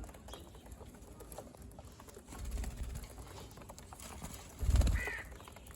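Caged budgerigars: scattered small clicks and scratching, with a short chirp near the end. A low thump, the loudest sound, comes just before the chirp.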